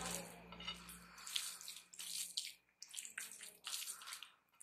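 A bare hand squeezing and mixing rice with dal and mashed potato on a plate: wet squelching and squishing in short, irregular bursts.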